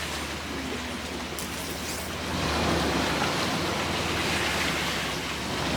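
A 4x4 driving along a rough beach track: steady engine and tyre noise under a rushing haze of wind or surf noise, louder from about two and a half seconds in.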